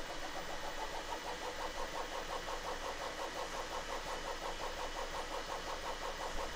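Bambu Lab 3D printer's stepper motors whining in a quick, even rhythm of about seven pulses a second as the print head sweeps back and forth laying down a thin flat part.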